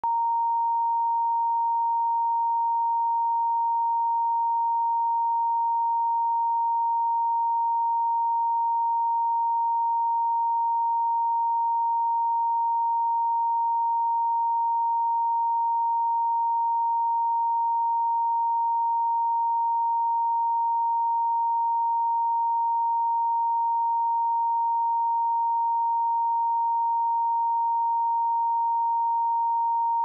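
A pure 928 Hz sine-wave test tone, held at one steady pitch and level without a break.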